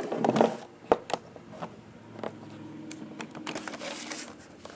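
Handling noise: a series of sharp clicks and taps as the cardboard wand box and the camera are handled, with a brief rustle a little before the end.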